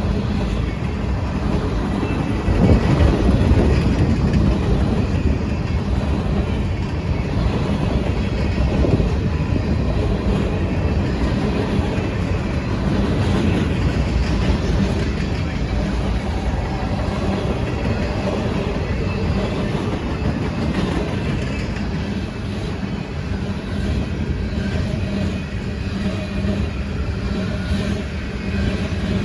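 A CSX freight train's cars rolling past, wheels clicking and rumbling on the rails in a steady run.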